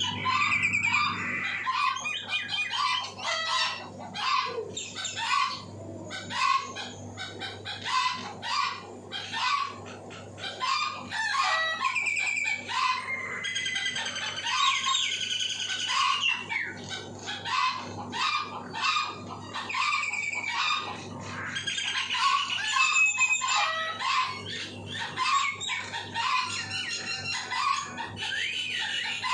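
Mynas calling busily, with many overlapping short whistles and harsh chattering notes, mixed with chickens clucking and a rooster crowing, over a faint steady low hum.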